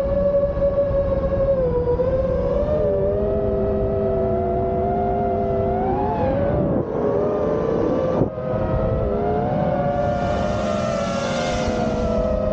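The brushless motors and propellers of a 5-inch FPV quadcopter whine in flight, heard from a camera mounted on the quad. Several close pitches drift apart and together as the throttle changes, with two brief dips about seven and eight seconds in and a rushing hiss near the end.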